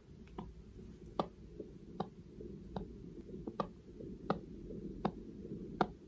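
A heartbeat recorded with a Stemoscope Bluetooth stethoscope, played back through a phone speaker: seven regular beats about every three-quarters of a second over a low hiss.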